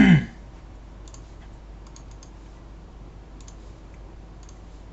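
Scattered faint clicks of a computer mouse, several in quick pairs like double-clicks.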